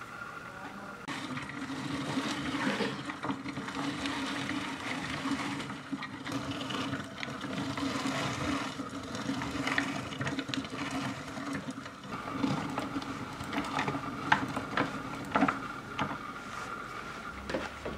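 A small electric kitchen grinder running steadily, grinding walnuts for the filling. It starts about a second in and stops near the end, with sharp clicks of nut pieces toward the close.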